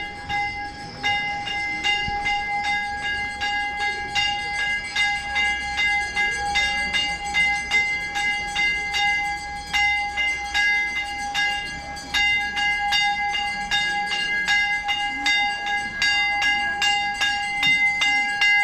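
Metal bells struck over and over, two or three strikes a second at an uneven pace. The bells ring on continuously, several held tones overlapping.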